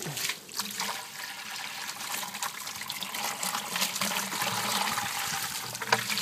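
Water running steadily from a hot water heater's drain spigot through a hose into a bucket as the tank is flushed of brown, sediment-laden water.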